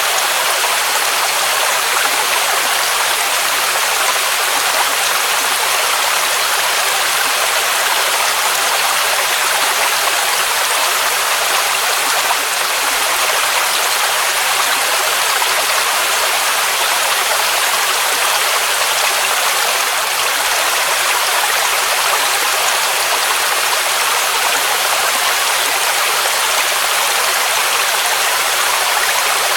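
Waterfall: water rushing steadily, an even hiss of falling water with no breaks or changes.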